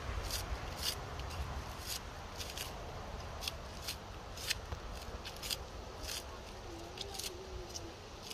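Knife slicing through a scallion stalk held in the hand, a crisp snip with each cut, about a dozen irregularly spaced cuts.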